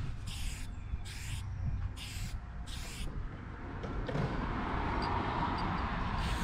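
Aerosol spray-paint can sprayed in short bursts: about five brief hisses in the first three seconds, then a longer, duller rushing noise through the last couple of seconds, over a low rumble.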